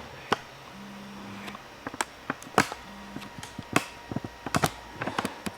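Irregular sharp clicks and taps, about a dozen, from a flat screwdriver and hands working at the plastic casing of a Canon Pixma iP4500 printer.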